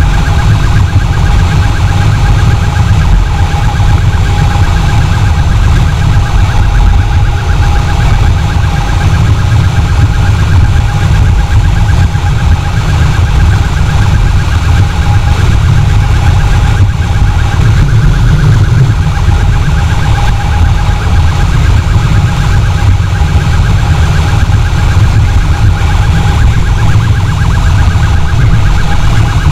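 Heavy wind buffeting on a motorcycle-mounted camera's microphone at road speed, over a steady, rapidly pulsing electronic siren tone.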